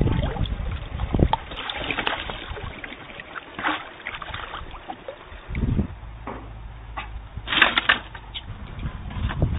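Water splashing and sloshing in irregular bursts at a river's edge as an animal is handled in the shallows, with a louder splash near the end.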